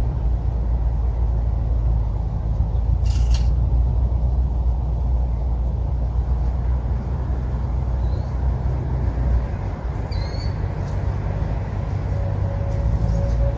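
Outdoor ambience: a steady low rumble, with a short high chirp about ten seconds in. The siren is not sounding.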